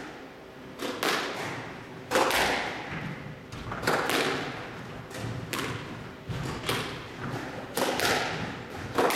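Squash rally: the ball is struck by rackets and smacks off the court walls, a sharp hit roughly every half-second to a second, each ringing on in the court's echo.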